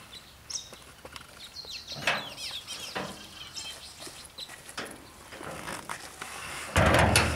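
A steel gate being pushed open, with knocks and rattles from its metal panels, and footsteps on gravel; birds chirp faintly in the background. Near the end a much louder, fuller noise starts suddenly.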